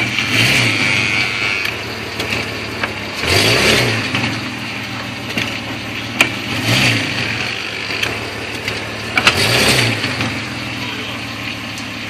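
Volkswagen Touareg engine idling, with four short rises and falls in engine speed about three seconds apart as the car pulls away, and sharp knocks around them. The knock on pulling away is what the owner places around the driveshaft's elastic coupling.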